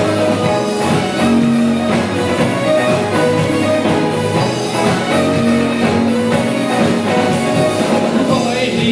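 Music playing throughout, a full ensemble sound with long held notes.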